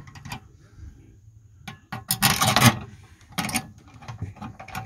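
Rubbing and scraping from hands working on the roof air conditioner's metal ceiling assembly and wiring, loudest in a burst about two seconds in and again more briefly a second later, with a few light clicks.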